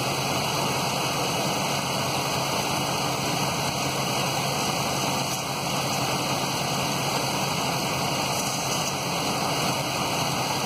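2005 Dodge Dakota's 4.7-litre V8 idling steadily in neutral, heard as an even hiss-like running noise with a low hum underneath.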